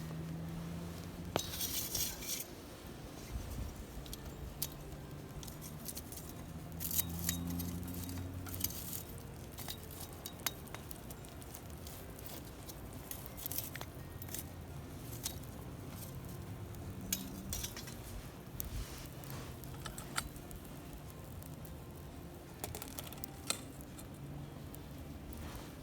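Camp cookware and metal utensils clinking and tapping in scattered, irregular clicks, with a few short flurries.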